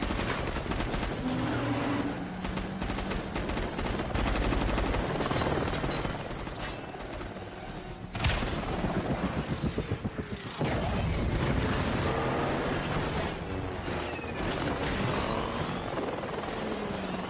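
Action-film sound mix: rapid automatic gunfire for the first few seconds, a sharp impact about eight seconds in followed by fast pulsing, then helicopter noise under a dramatic music score.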